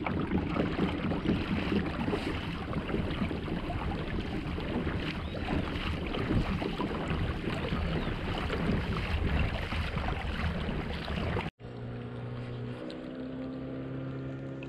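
Kayak out on the water: low wind rumble on the microphone mixed with water noise. It cuts off abruptly about eleven seconds in, followed by a few seconds of steady droning tones.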